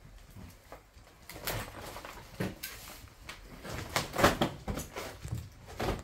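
Footsteps and scuffs through debris with a few irregular knocks and clatters, the loudest about four seconds in.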